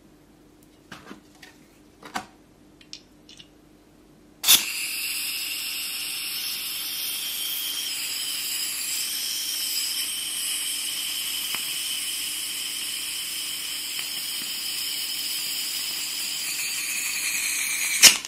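Airsoft gas can pressed onto a gas blowback pistol magazine's fill valve, charging the magazine: a loud, steady hiss with a high whine that starts abruptly about four and a half seconds in and stops with a click near the end. Before it, a few light clicks of the can and magazine being handled.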